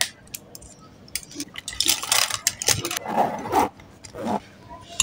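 Plastic pens and highlighters clicking and clattering against each other as they are handled and packed into a zippered pencil pouch, with a short zipper pull near the end.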